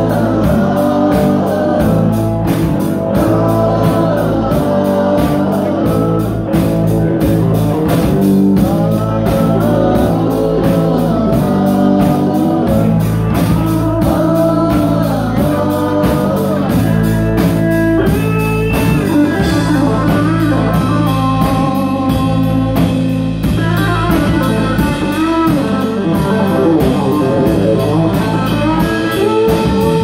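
Live rock band playing: electric guitars and a drum kit under a sung lead vocal.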